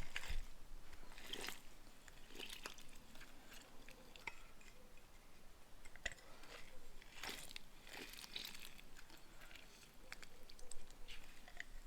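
Faint, scattered crunching and squishing as a fresh lime is squeezed into a bowl of marinade.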